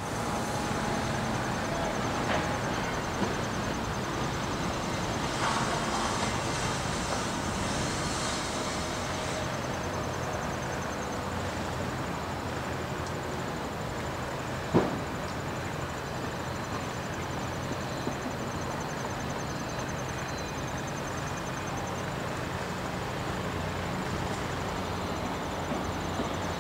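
Two GMD SD40-2 diesel-electric locomotives approaching at a distance, their 16-cylinder EMD 645 engines a steady low drone under a wash of outdoor noise. A single sharp click about halfway through.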